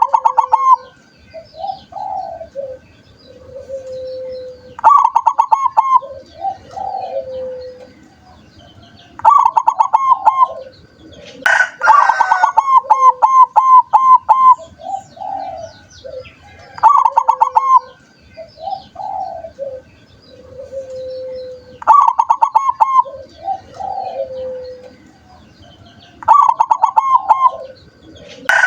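Zebra dove (perkutut) cooing song: every four to five seconds a phrase of quick, clipped coo notes, with softer, lower drawn-out coos between the phrases.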